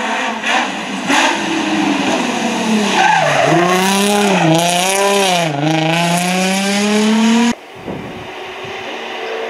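Nissan 350Z rally car's V6 engine at full rally pace, with a couple of sharp cracks early on. About three seconds in the engine note drops hard as the car brakes and shifts down for a tight bend, then dips and climbs twice with the throttle through the slide, with tyre noise. It rises steadily as the car accelerates away, then cuts off abruptly to a quieter, distant engine.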